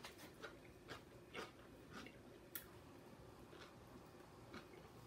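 Faint close-up chewing of a sandwich: soft, irregular mouth clicks about every half second to second, the sharpest about two and a half seconds in.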